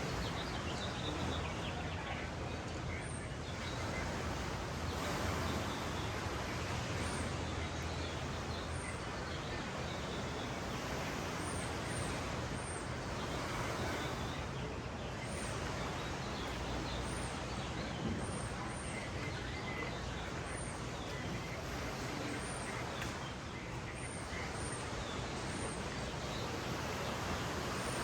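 Steady outdoor beach ambience: an even wash of surf and background hum, with small birds chirping in short, high notes every second or two.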